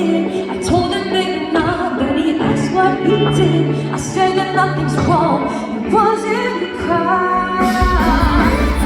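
Live pop song: a woman singing a melody over band accompaniment, with a heavy bass line coming in near the end.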